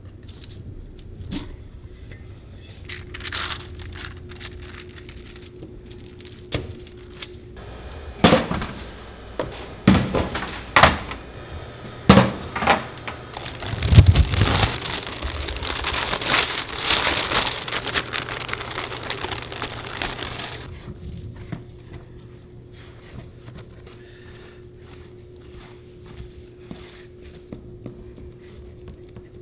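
Pie dough being worked by hand: light clicks and scrapes as a knife is drawn around a stainless-steel bowl set on the rolled dough, then a louder stretch of crinkling and knocks, with a low thump about halfway, as the dough sheet on its film is lifted over a fluted metal tart tin. Near the end come soft taps as the dough is pressed into the tin, over a faint steady hum.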